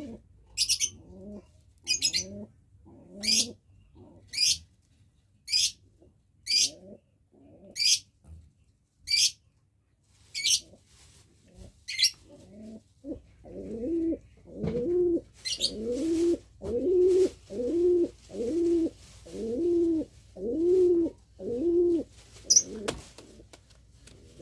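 Domestic pigeon cooing in courtship: soft coos at first, punctuated by short sharp high-pitched rasps about once a second, then from about halfway a run of louder, evenly repeated rolling coos, one every second or so, typical of a male pigeon's courtship cooing during mating.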